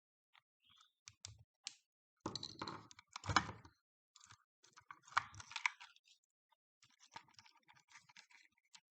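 Clicks, taps and clatter of a battery pack's parts being handled during a teardown, with two busier spells of rattling in the middle and light ticks near the end.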